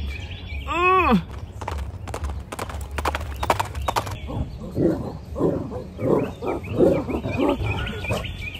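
Dogs grunting and growling in play, a run of short rhythmic pulses about two a second through the second half.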